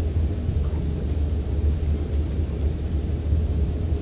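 Steady low rumble of room background noise, with no speech.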